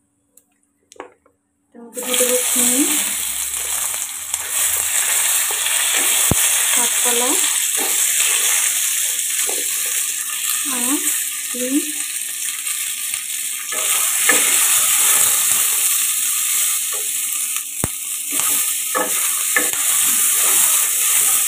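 Cut flat beans and green banana pieces hitting hot oil in a kadai. They start sizzling loudly and suddenly about two seconds in, and the frying keeps on as a wooden spatula turns them.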